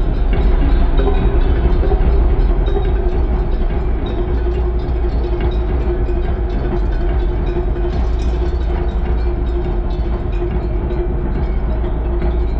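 Live drum-segment jam over a concert sound system: a continuous deep rumble of drums, heavy in the bass, with a steady droning tone held over it.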